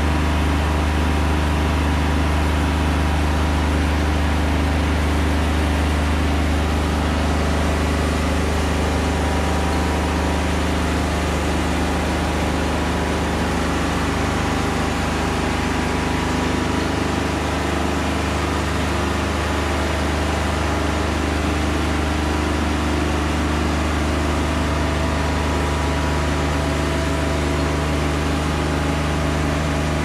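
Wood-Mizer LT40 Wide portable bandsaw mill running steadily, its engine humming while the band blade saws along a butternut log.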